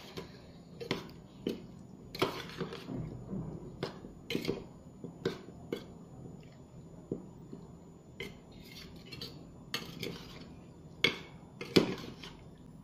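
A spoon clinking and scraping against a tiffin box as prawns are stirred into mustard paste and spices, in irregular strokes about every half second, the two loudest clinks near the end.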